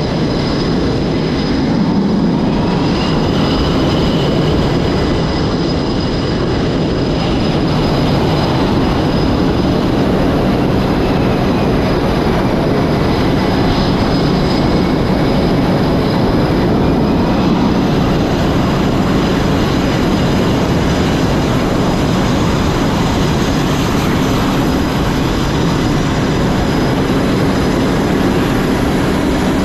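Loud, steady jet engine noise on an aircraft carrier flight deck, with a faint high whine that rises and falls.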